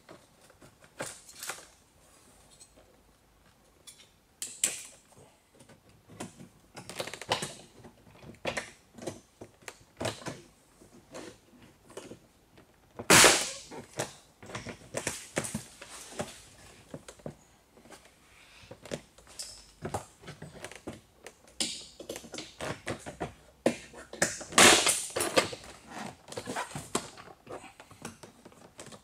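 Plastic retaining clips of a Peugeot 607 door trim panel being pried and popped loose: irregular clicks, scrapes and knocks, with two loud snaps, one near the middle and one near the end.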